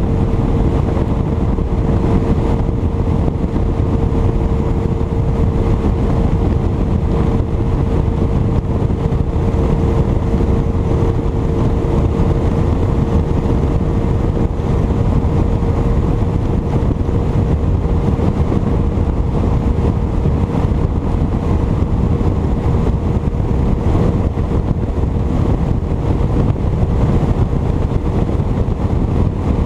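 Bass boat running at steady cruising speed on its 150 hp outboard motor: a constant engine hum with a steady whine, under heavy wind rumble on the microphone.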